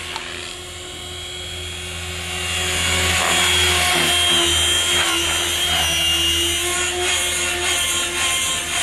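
Electric 500-size RC helicopter (Compass Atom 500) in flight: a steady whine from the motor and drive, with the rotor noise beneath it. It gets louder about three seconds in, and the pitch of the whine wavers as the power changes.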